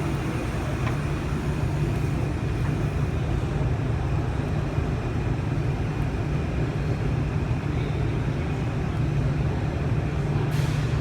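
Car engine idling with the AC compressor engaged, a steady low hum, with a brief hiss near the end.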